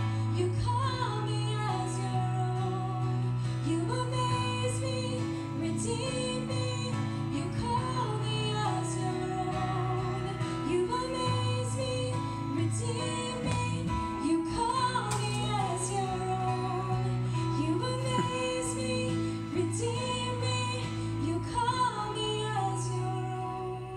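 A woman singing a worship song into a handheld microphone, amplified, over instrumental accompaniment with steady sustained bass notes. The music starts to fade near the end.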